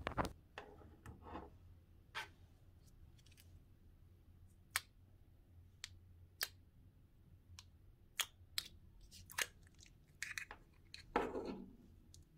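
Clear slime being poked and handled with the fingers, giving faint, irregular sticky clicks and small pops, with one louder, longer sound near the end.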